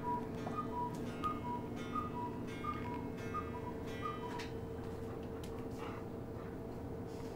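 Steady tick-tock ticking, alternating between a higher and a lower pitch at about three ticks a second, stopping about four seconds in, over a steady low hum and a few faint clicks.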